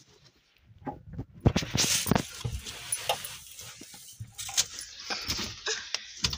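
Irregular rustling, rubbing and small knocks right at the microphone, starting about a second in: a handheld phone being jostled while a small child clambers over a fabric seat.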